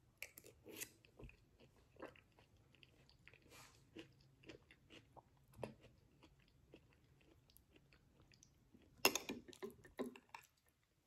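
Faint close-miked chewing of a mouthful of vegan shepherd's pie, with small wet mouth clicks. About nine seconds in, a metal spoon scrapes and scoops in the ceramic bowl, the loudest sounds.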